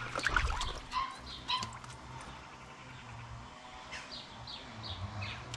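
A small bird calling a run of short, high, slightly falling notes, about two or three a second, starting about four seconds in, over the steady rush of a small stream. In the first two seconds there is a cluster of knocks and rustles, the loudest sounds here.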